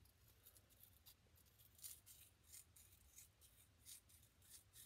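Near silence with faint, irregular scratching and rubbing as a small wet gem-dig block is scraped and worked by hand to dig out the gem inside.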